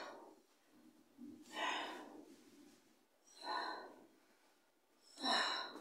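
A person breathing hard while exercising: three strong, noisy breaths about two seconds apart.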